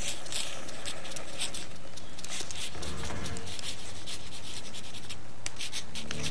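Quill pen scratching on paper: a steady run of short, irregular scratchy strokes.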